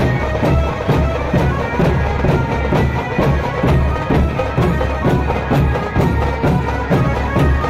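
Large barrel dhol drums beating a fast, steady rhythm, with a reedy wind instrument playing a sustained, droning melody over them.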